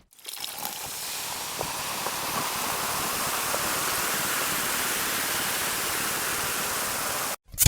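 A steady rushing hiss that swells in over the first half second and holds even, then cuts off abruptly near the end.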